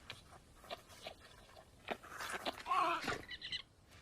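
Invented dinosaur vocalisation for Austroraptor, likely built from animal sounds. A few faint clicks are followed, about two seconds in, by a short call with a wavering pitch that ends in a brief rattle.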